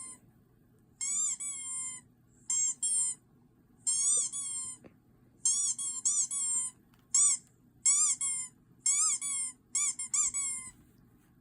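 A run of about fifteen short, high-pitched squeaks, coming singly or in quick runs of two or three. Each squeak rises then falls in pitch. They stop shortly before the end.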